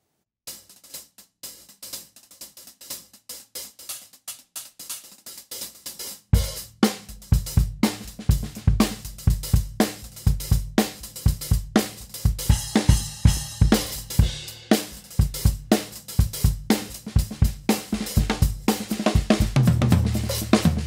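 Acoustic drum kit being played. For about the first six seconds there is a steady cymbal pattern alone. Then kick and snare come in with a full groove that carries on.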